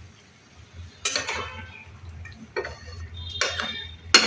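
A spatula scraping and knocking against a metal pan while chicken pieces are stirred with spices. There are several separate strokes, the loudest near the end with a short metallic ring.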